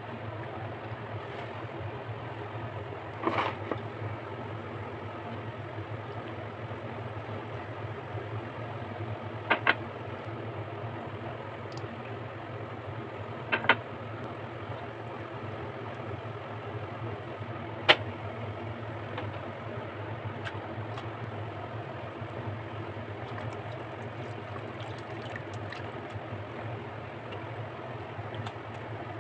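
A steady low mechanical hum, with a handful of sharp clicks and knocks as a silicone spatula strikes plastic containers while oil is stirred, two of them coming as quick doubles.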